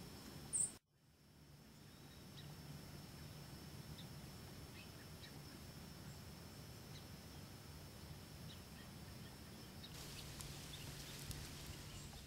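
Quiet outdoor ambience: a faint steady hiss with a few short, faint high chirps. There is a brief sharp chirp just after the start, and the sound cuts out for a moment. Near the end there is a faint rustle of clothing or gear.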